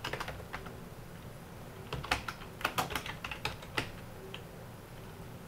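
Computer keyboard being typed on: a few keystrokes at the start, then a quick run of about a dozen keystrokes between two and four seconds in.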